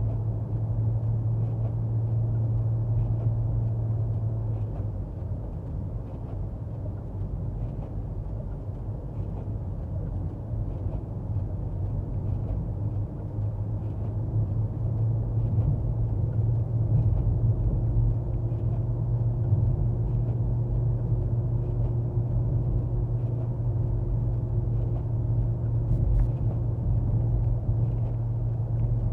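Car engine and road noise heard from inside the cabin while driving, a steady low drone that eases off for several seconds and then builds again.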